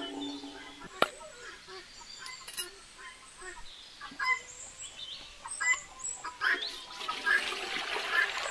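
Domestic fowl calling in short, scattered calls that grow busier near the end, with one sharp knock about a second in.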